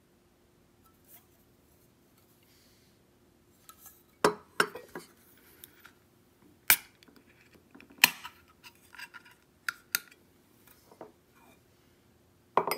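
A can of coffee being handled on a table and its pull-tab opened: a string of sharp clicks and taps of the can and tab, with softer rattles between.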